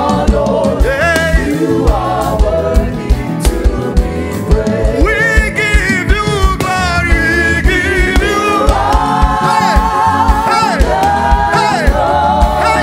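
Live gospel band music: a drum kit keeps a steady groove, with keyboards under voices singing in harmony.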